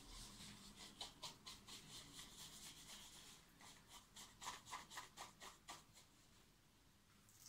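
Faint rhythmic swishing of a shaving brush whipped around a faux-wood bowl to build lather from shaving soap, about four strokes a second, stopping about six seconds in.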